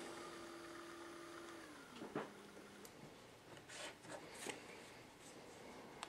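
A-OK AM25 lithium-ion tubular shade motor running unloaded on the bench with a faint steady hum. Its pitch slides down as it stops, about two seconds in. A click and a few faint clicks and rustles follow.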